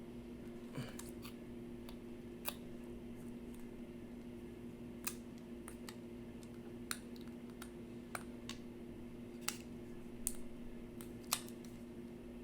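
Light, irregular clicks and taps of small tools and phone parts being handled while a smartphone is reassembled, over a steady low hum.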